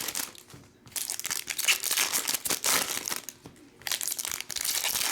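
Trading card pack wrappers crinkling as they are handled and torn open, in bursts with two short pauses.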